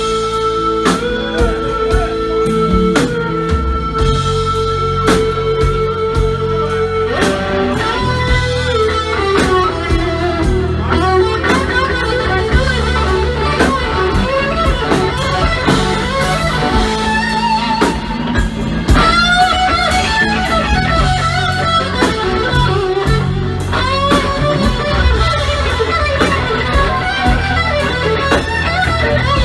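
Live band playing, with a red semi-hollow electric guitar taking the lead over bass guitar and drums. The guitar holds a single note for about seven seconds, then plays bending, moving lead lines.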